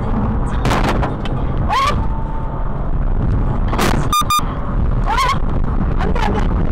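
A car's cabin at high speed during a sudden unintended acceleration: a loud, steady rumble of engine and road noise. Short rising cries come about two seconds in and again about five seconds in, and a quick double electronic beep sounds about four seconds in.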